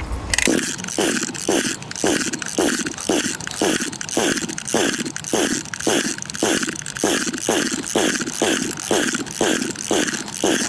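Recoil pull-starter of a two-stroke brush cutter being yanked rapidly over and over, about two pulls a second, each pull a short whir that falls in pitch as the engine spins over and slows. The engine does not fire: it is being cranked dozens of times with the fuel valve open to get a non-starting engine going.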